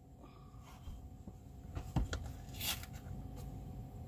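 Quiet handling of a small cream carton at a mug: a faint click, then a light knock about two seconds in and a short rustle just after, over a steady low hum.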